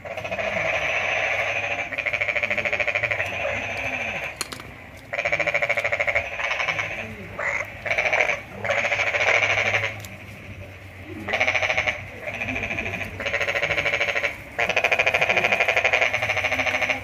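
Loud, rapidly pulsing animal calls, repeated in bouts of one to three seconds with short breaks between them.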